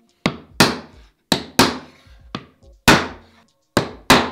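A mallet knocking on a wooden block about eight times, several blows in quick pairs, driving the glued oak bottom panel down into the rabbets of the octagonal frame.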